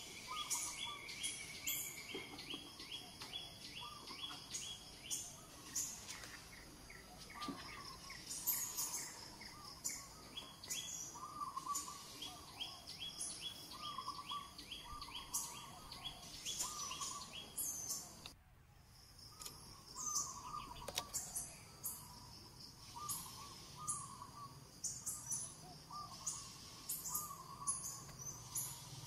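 Several birds chirping and calling, with short repeated notes and quick trills, over a steady outdoor background.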